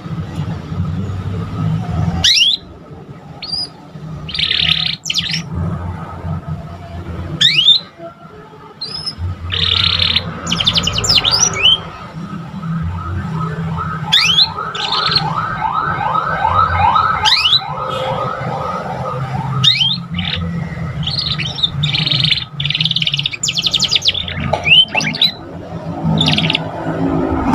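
Young domestic canary practising its song: quick high chirps and falling whistled sweeps, with a run of rapidly repeated trill notes in the middle, over a low background hum.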